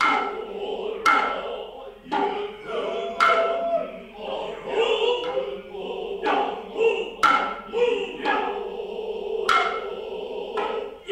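Noh music: a chorus of low male voices chanting steadily, punctuated about once a second by sharp tsuzumi hand-drum strikes.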